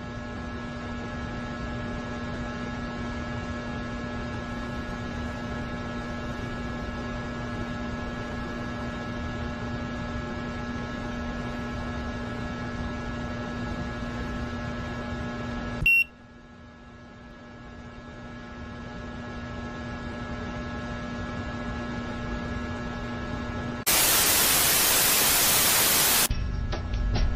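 A steady droning hum with several held tones over hiss. About halfway through, a sharp click cuts it off, and it swells back in. Near the end comes a loud burst of TV static lasting about two seconds.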